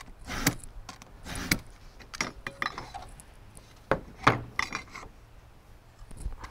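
Utility knife scoring a fiber-cement clapboard along a metal layout square used as a straight edge: a series of short scraping strokes, each pass cutting a groove so the board can be snapped.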